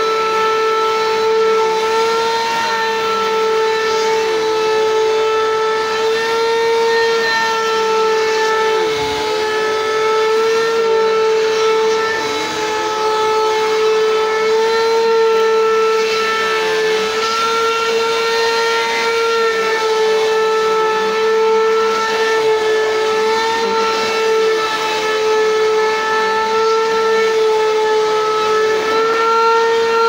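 Bissell PowerForce Compact bagless upright vacuum cleaner running as it is pushed over a rug: a loud, steady, high motor whine, its pitch dipping briefly now and then.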